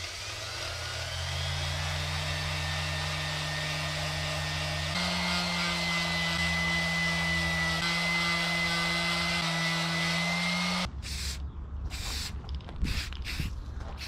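A small electric motor runs steadily with a high whine, steps up to a higher speed about five seconds in, and then cuts off suddenly; a few clicks and creaks follow.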